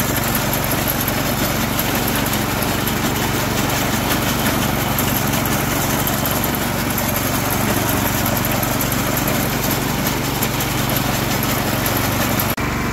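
Small single-cylinder engine of a 1963 Ariens Sno-Thro walk-behind snowblower running steadily while the machine is driven and turned on gravel. There is a brief dip near the end.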